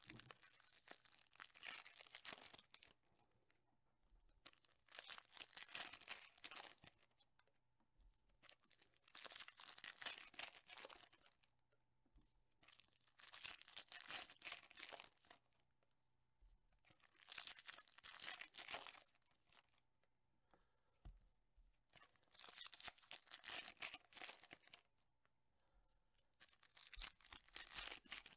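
Shiny trading-card pack wrappers being torn open and crinkled by hand: faint crackling bursts of a second or two each, about every four seconds, quiet between them.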